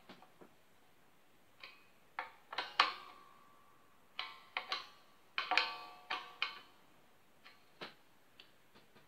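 Sharp metallic clicks and taps of a screwdriver working the tremolo spring claw screws in the back cavity of a Floyd Rose-equipped electric guitar, loosening them to float the bridge. They come in irregular clusters, several followed by a brief pitched metallic ring from the springs and strings.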